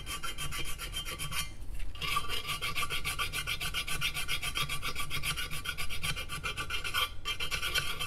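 Flat file rasping in quick short strokes across a rough edge of a Rochester Quadrajet carburetor's body casting, dressing down casting roughness. The strokes pause briefly just before two seconds in.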